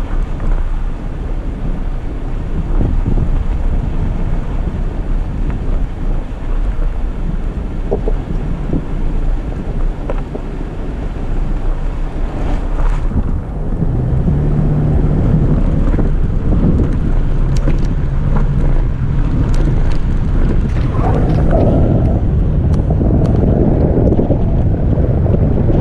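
Toyota FJ Cruiser's 4.0-litre V6 and tyres running along a gravel dirt road: a low, steady road rumble with wind buffeting the microphone. About halfway through a steady engine hum comes up, and near the end the road noise grows rougher with scattered ticks of gravel and rattles.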